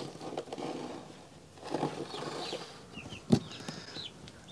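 Young chicks peeping in short, high, falling chirps, over a soft scraping of a PVC pipe being handled and marked with a felt-tip marker. A single sharp click about three seconds in.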